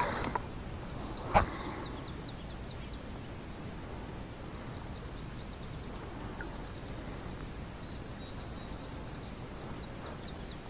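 Small birds chirping now and then over a steady outdoor background hiss, with one sharp knock about a second and a half in.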